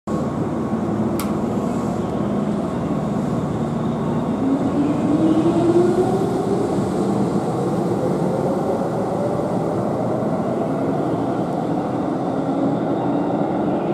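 Keihan electric train running through the station, wheels and rolling noise throughout, with the traction motors' whine rising steadily in pitch from about four to seven seconds in as the train picks up speed. A single sharp click about a second in.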